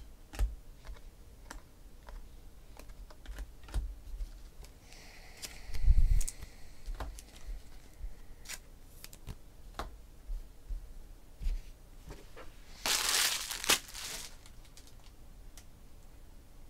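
Scattered small clicks and knocks from handling things at a desk, with one heavier thump about six seconds in and a short burst of crinkling rustle about thirteen seconds in.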